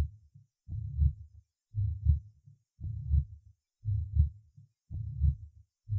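Recorded heart sounds with the systolic murmur of tricuspid regurgitation, heard over the tricuspid area. The heart beats about once a second, six beats in all, and each beat is a low, rough murmur running between the heart tones. The first tone is weakened, as is typical of this condition.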